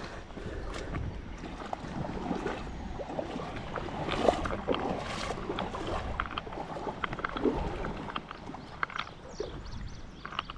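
Creek water sloshing and gurgling around a person wading deep, with scattered small splashes and clicks.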